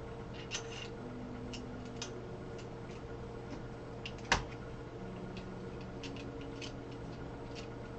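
Scattered small clicks and taps of plastic and metal parts being handled as a 3D-printed extruder arm, spring and screw are fitted to a 3D printer's extruder, with one sharper knock about halfway through. A steady low hum runs underneath.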